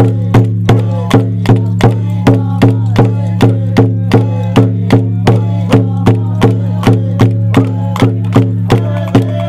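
Pomo dance song: a steady percussion beat struck about three times a second, with voices singing over it.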